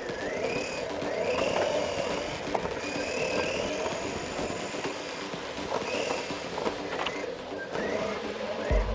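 Electric motor of a radio-controlled racing car whining as the car laps. The whine rises in pitch several times as the car accelerates, over a steady rattle from the chassis and tyres on the track.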